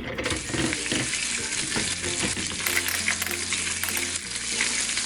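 Steady sizzling, crackling frying sound from a toy kitchen cooking set as pretend corn cooks in the pan.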